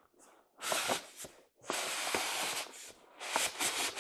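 Packaging of a boxed O-scale model train flat car rustling and crinkling as it is handled and unwrapped, in three bursts with small clicks, the longest about a second and a half in.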